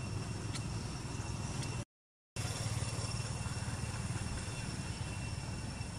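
Steady low rumble of outdoor background noise, with two faint steady high-pitched tones above it. The sound cuts out completely for about half a second near the middle, then resumes unchanged.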